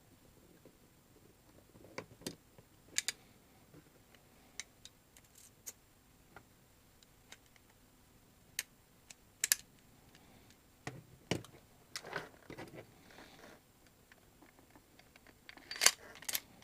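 Scattered sharp clicks and knocks of airsoft pistol parts being handled and fitted together by hand, with a short cluster of rattling clicks midway and the loudest pair of clicks near the end.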